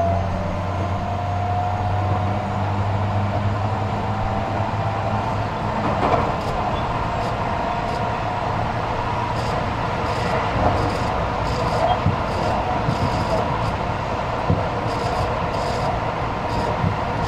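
Tobu 50000 series electric train running between stations, heard from inside the passenger car. A faint rising inverter whine fades out over the first few seconds, leaving steady wheel-and-track rumble with occasional light clicks.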